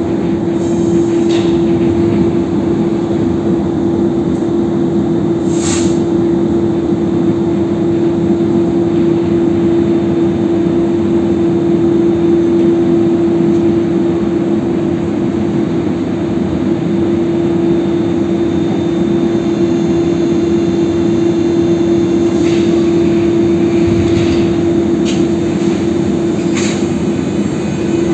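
First-generation (Series 1) metro train standing at the platform, its onboard equipment giving a loud, steady hum on one tone over a low rumble. A few short clicks come once early on and several times near the end.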